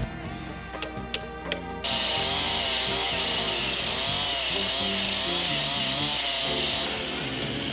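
A few sharp knocks, then a chainsaw starts cutting into a log about two seconds in and runs steadily in the cut for about five seconds before easing off, under background music.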